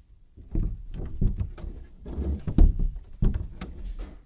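Irregular thumps and knocks, several in a row, the loudest about two and a half seconds in: someone moving about and bumping into things.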